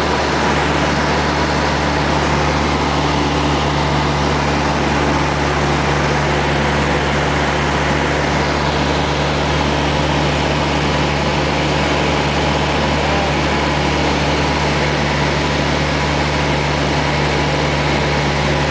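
Single-engine Cessna's piston engine and propeller droning steadily in cruise, heard from inside the cabin as a loud, even low hum with a broad rushing noise over it.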